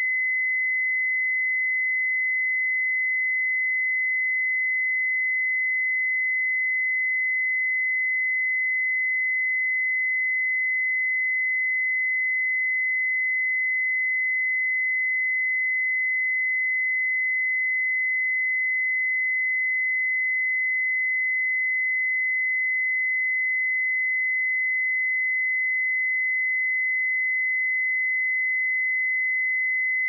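Pure sine-wave test tone at 2032 Hz, one steady high-pitched note with no change in pitch or loudness.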